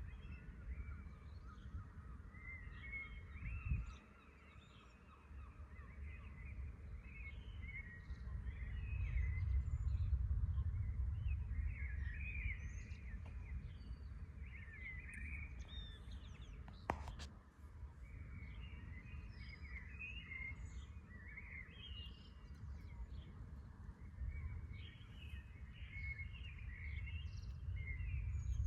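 Many small birds chirping and calling in a dawn chorus over a steady low rumble that swells for a few seconds about a third of the way in. A single sharp click comes a little after halfway.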